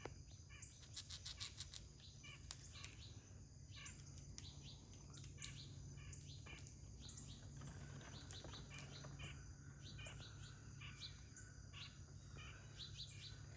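Faint birdsong: small birds chirping and twittering in quick repeated notes, over a low steady hum.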